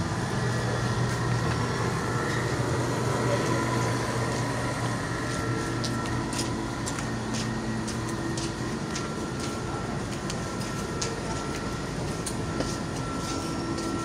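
Steady hum of an air-conditioner outdoor unit, strongest in the first few seconds and then fading. Through the second half come sharp clicks about twice a second, the slap of flip-flops on a tiled floor.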